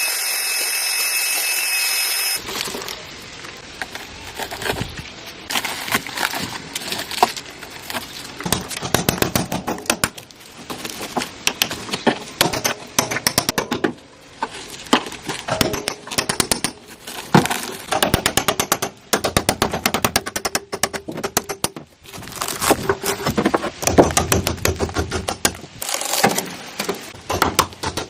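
Workshop tool sounds: a power tool runs with a steady high whine for about two seconds and cuts off, followed by a long run of rapid, irregular clicking and tapping, like hand tools or small metal parts being worked.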